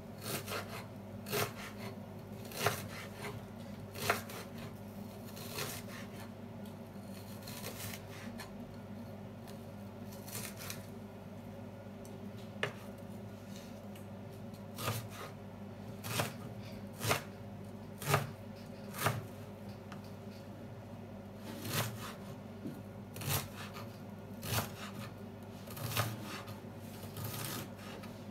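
Kitchen knife chopping an onion on a wooden cutting board: sharp, irregular knocks of the blade striking the board, about one every second or so, over a steady low hum.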